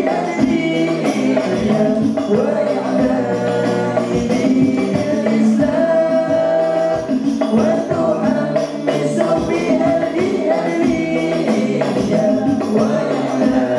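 A young male voice sings sholawat (Islamic devotional song in Arabic) over an al-Banjari ensemble of rebana frame drums beating a continuous rhythm.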